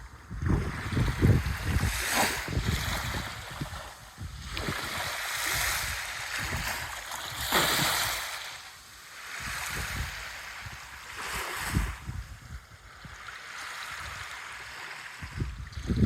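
Small waves breaking and washing up a sandy beach, the hiss swelling and fading every few seconds as each wave runs in and draws back. Wind buffets the microphone.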